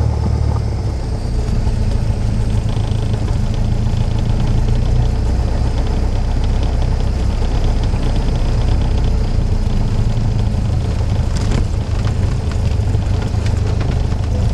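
Cessna 172's piston engine idling at low power as the aircraft taxis, a steady low drone heard from inside the cabin.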